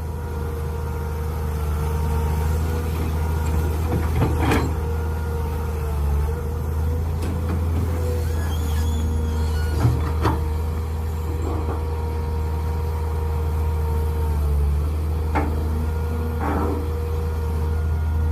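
Mini excavator's engine running steadily with a constant whine over it, and several sharp knocks of the working machine, about four, ten and fifteen to sixteen seconds in.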